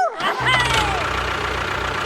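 A short falling tone, then a steady engine running sound starts about half a second in, of the kind that goes with a mini tractor or mini bulldozer.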